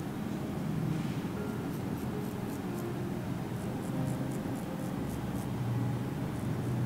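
Straight razor scraping across skin in short, quick strokes, over a steady low hum.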